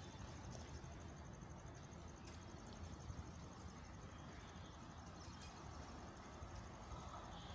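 Faint insect trilling, a fast, evenly pulsed high chirp that fades out about three seconds in, over a low steady rumble of outdoor background noise.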